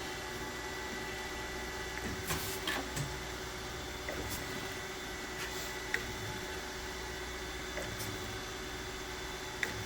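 Kent KGS-1020 AHD automatic hydraulic surface grinder running: the 2 hp spindle motor, hydraulic pump and coolant pump make a steady hum with a few constant tones as the hydraulic table traverses, broken by several short sharp clicks.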